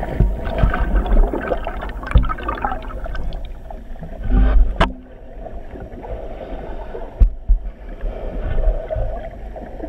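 Underwater camera audio: water rushing and bubbling against the housing with a heavy low rumble, broken by a few sharp knocks about two, five and seven seconds in as the camera is jostled in the churning water.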